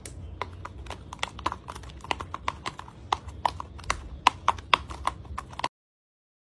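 A quick, even series of hollow clip-clop clicks, about four a second, that cut off suddenly near the end.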